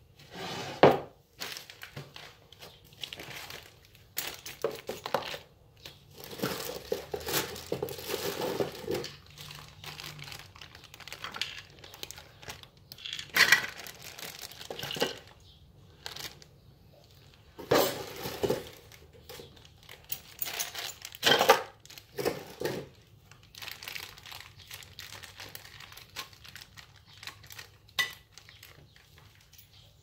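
Plastic wrapping and paper crinkling and rustling as the parts of a garage door opener kit are handled, broken by a few sharper knocks of metal parts.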